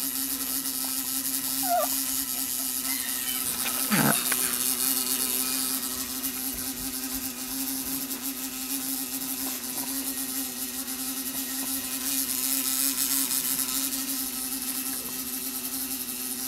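A bee trapped under a clear plastic cup buzzing steadily. About four seconds in, a single short falling sound stands out above the buzz.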